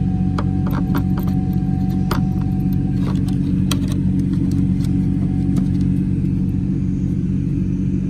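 A steady low engine-like rumble, with scattered light clicks and taps.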